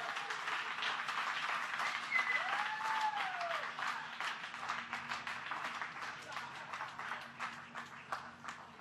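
A room full of people applauding and cheering, with a few whooping shouts about two seconds in; the clapping gradually dies down over the second half.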